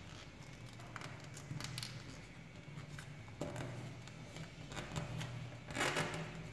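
A paper dollar bill being folded and creased by hand: scattered small crinkles and finger taps on the paper, with a longer, louder crinkle near the end. A faint low hum runs underneath.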